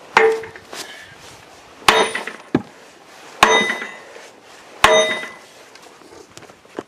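A sledgehammer striking the clutch housing of an International B414 tractor's transmission four times, about a second and a half apart. Each blow is a ringing metallic clang. The blows are meant to knock the housing loose where it sticks on its dowels and gasket.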